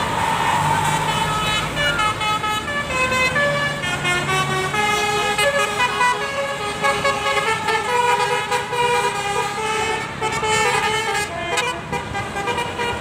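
Bus basuri ('telolet') musical horn playing a tune: a long run of quick notes stepping up and down, with a bus engine running underneath during the first few seconds.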